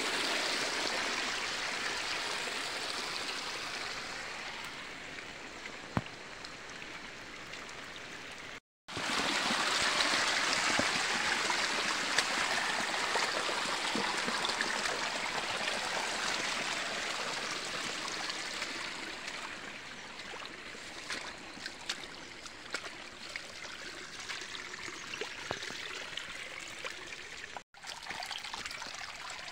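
Rainwater runoff rushing over stones in small hillside channels, a steady flow of water swollen by heavy rain. It breaks off for an instant twice and is loudest for a stretch after the first break, about nine seconds in.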